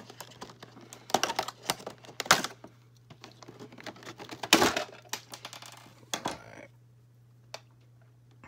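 Cardboard-and-plastic doll box being handled and its tabs cut: irregular clicks, scrapes and rustles, the loudest a little over two seconds in and again about halfway through, over a steady low hum.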